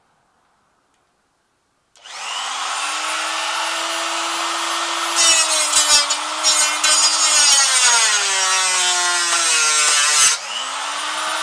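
Electric cut-off tool starting about two seconds in with a rising whine and running at speed, then its abrasive wheel grinding into a Shark vacuum cleaner with a loud, harsh cutting noise while the motor's pitch sinks under the load. The cut stops sharply near the end, and the tool spins up again.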